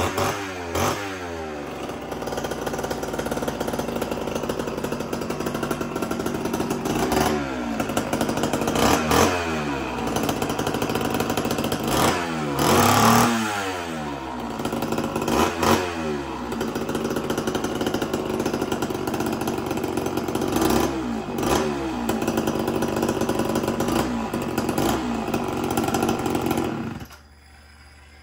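Homelite two-stroke chainsaw running with its chain off, revved again and again, the pitch sweeping up and back down with each blip of the throttle between spells of steady running. The engine cuts off near the end.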